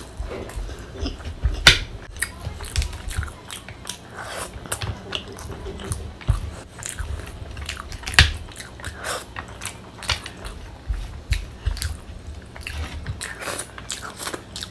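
Close-miked chewing and biting of a mouthful of spicy Schezwan fried rice eaten by hand, with irregular smacking mouth noises.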